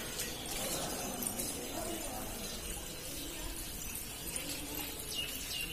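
Outdoor ambience: a steady hiss with faint distant voices. A bird chirps a few times near the end, in short falling notes.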